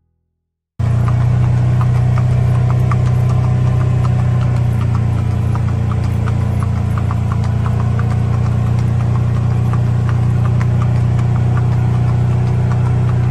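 A vehicle engine drones steadily, low and loud, starting suddenly about a second in, with faint scattered clicks from a horse's hooves on pavement.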